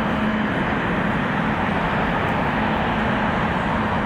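The GE90-115B turbofan engines of a Boeing 777-300ER running with a steady jet roar, with a faint steady low tone under it.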